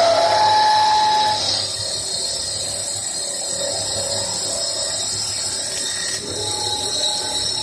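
CNC wood lathe turning a wooden bowl: a steady motor hum under the hiss of the cutter shaving the spinning wood, with a brief whine in the first second or so.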